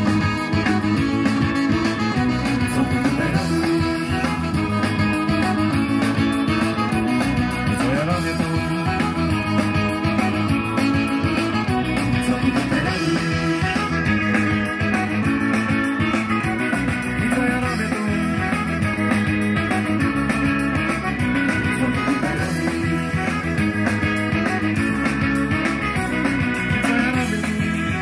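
Rock song with guitar coming from an FM radio broadcast through the speakers of a Panasonic RX-ED50 portable stereo, at a steady volume.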